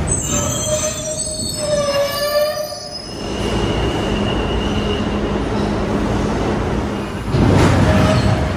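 Steel wheels of a subway work train squealing at slow speed, several high wavering tones at once for about three seconds. Then the steady hum of a standing subway train with a held high tone, and a short loud burst of noise about seven seconds in.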